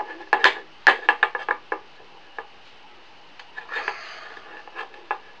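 Quick run of sharp clicks and knocks as a magnet-fishing magnet and its eyebolt and nut are handled on a hard surface, then a short rasp about four seconds in and a couple more clicks.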